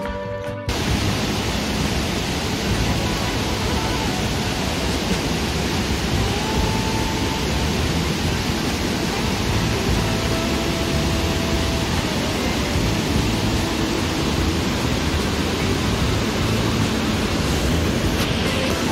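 Steady rushing of water as a small stream cascades over rocks, starting suddenly about half a second in.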